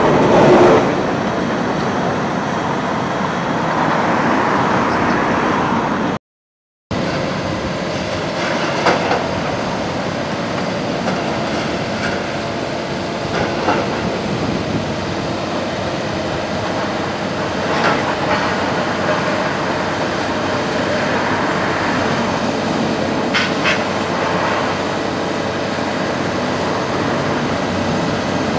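Hydraulic excavators working over concrete demolition rubble: a steady machinery rumble with scattered knocks and clatter of broken concrete, cut off briefly about six seconds in.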